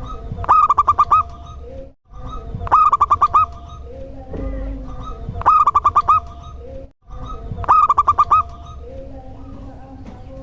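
Zebra dove (perkutut) singing its cooing song: four phrases about two and a half seconds apart, each a quick run of about six rolling, looping notes. A steady low hum runs underneath.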